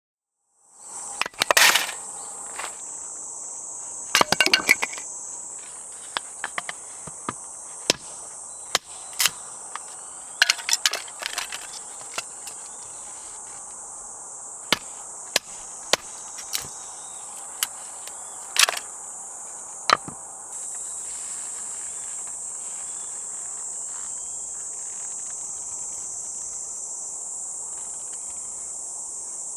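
Insects chirring in a steady high-pitched chorus, a little louder in the last third. Scattered sharp knocks and clicks come through it over the first two-thirds.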